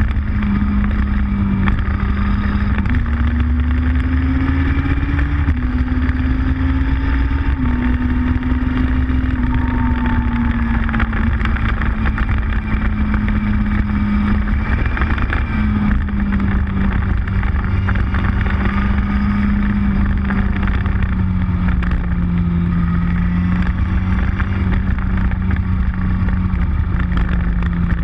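Motorcycle engine running at a steady road cruise, its pitch stepping up and down a little with throttle and speed, over heavy wind and road noise on the microphone.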